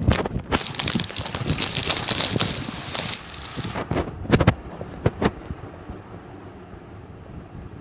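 Handling noise: a run of clicks and knocks under a rustling hiss for about three seconds, then two sharper knocks around four and five seconds in, after which only a faint steady hum remains.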